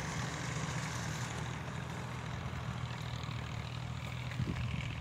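An engine running steadily at idle, a low even hum, with a steady hiss over it.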